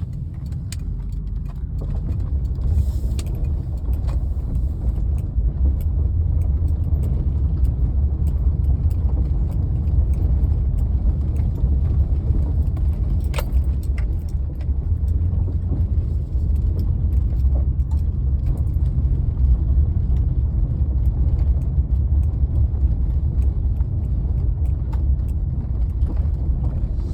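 Steady low rumble of road and engine noise inside a moving vehicle's cabin, with a few faint clicks and rattles.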